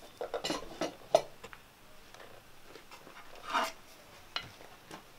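Metal utensils clinking and scraping against a metal cooking pot and a plate while rice and peas is dished up. A quick run of sharp clinks comes in the first second or so, then one louder short scrape and a single knock later on.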